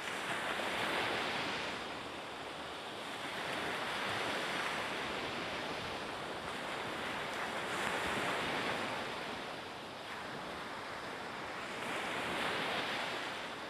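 Sea surf washing against a rocky shore: a steady rush of water that swells and ebbs in about four slow surges.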